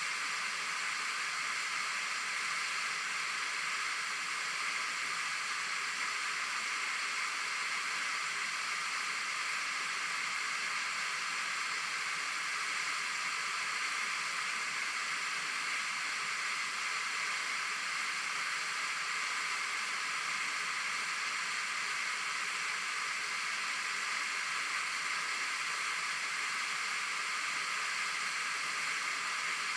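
Waterfall: the steady, even rush of falling water, without pause or change.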